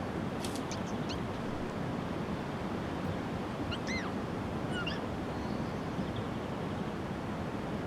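Steady outdoor background noise with a few short, high chirps: a quick cluster in the first second, one arching call about four seconds in, and a couple more just after.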